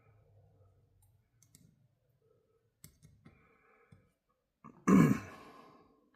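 Light clicks and taps of small parts and tools being handled on a workbench, then one loud short noise about five seconds in that fades over about a second.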